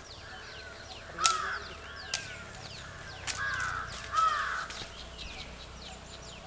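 Birds calling: a loud call about a second in, then two more near the middle, over many short, high, falling chirps from smaller birds.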